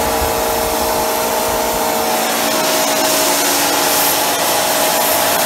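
Homemade micro jet propane burner running flat out: a steady rushing roar of high-velocity air and burning propane, with a few steady humming tones underneath and the hiss a little sharper from about three seconds in.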